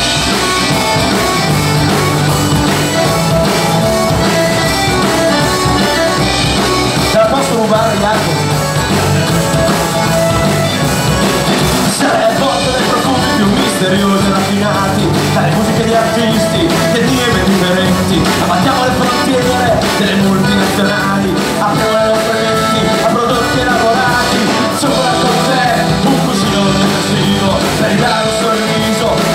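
Live rock-folk band playing through a PA: accordion, acoustic guitar, bass guitar and drum kit, at a steady, loud level.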